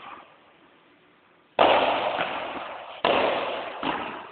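Padel ball struck with a racket twice, about a second and a half apart. Each stroke is a sharp pop followed by a long echoing decay.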